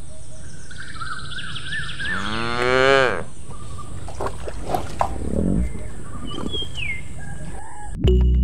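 A cow mooing once, a single call of about a second, about two seconds in, rising and then falling in pitch.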